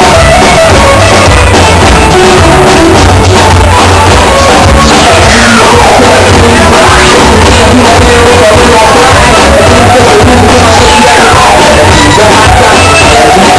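Loud music with singing and a steady bass. Two sweeping effects glide down and back up in pitch, one about halfway through and another a few seconds later.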